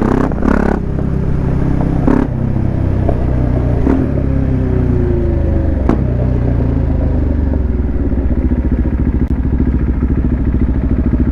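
Motorcycle engine running while riding, its pitch easing down through the middle, then settling into an even, fast pulsing at low revs from about eight seconds in, with a few sharp knocks along the way.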